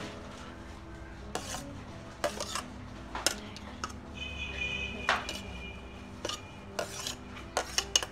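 Steel ladle clinking and scraping on a stainless steel plate as chopped vegetables are pushed off it, in a string of sharp clinks with a short metallic ring about halfway through.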